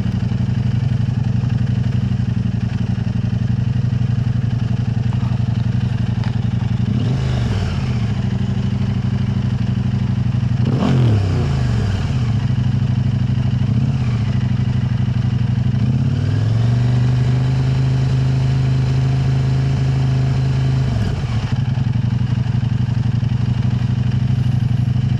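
KTM 890 Adventure R's parallel-twin engine idling through an Arrow Race-Tech aftermarket exhaust. The throttle is blipped a few times, rising and falling back, then held at higher revs for several seconds before dropping back to idle near the end.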